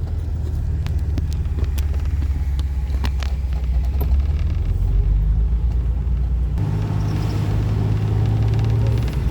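2004 Jeep Wrangler's engine running as it drives off, with a steady low hum. About two-thirds of the way through, the engine note shifts and road and wind hiss rise.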